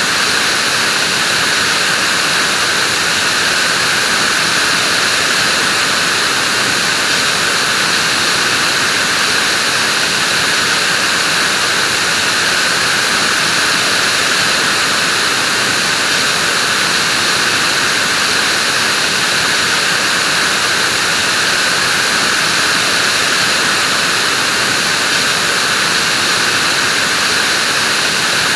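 Vacuum cleaner running steadily: an unchanging whooshing hum of motor and airflow, with no pauses or changes in pitch.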